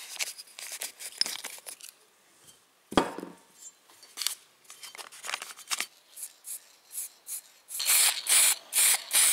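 Paper towel rubbing over a small aluminium engine part, with handling clicks and one sharp knock about three seconds in. Near the end come several short bursts of hiss from an aerosol spray-paint can.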